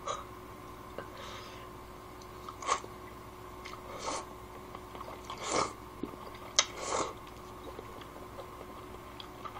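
A man slurping and chewing kalguksu noodles eaten with chopsticks: a handful of short, soft slurps and chews spread through, over a faint steady hum.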